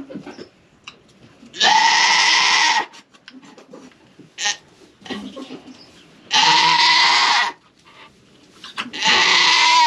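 Doe goat in labor screaming three times, each loud, raspy cry held for about a second, as she strains to push out a kid in a hard head-first delivery.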